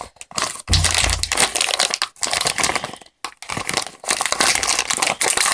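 Toy packaging being opened by hand: crinkling and crackling of the wrapping in quick runs with short pauses, and a dull bump about a second in.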